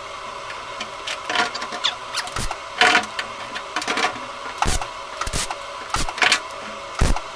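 A hammer striking the welded-in steel patch on a Peugeot Boxer's rear door: irregular sharp metal knocks about once a second, over a steady background hum.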